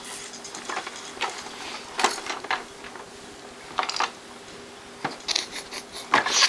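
Hard plastic toys on a baby activity saucer clicking and clattering as they are banged and rattled, in irregular knocks with a cluster of quick ones near the end.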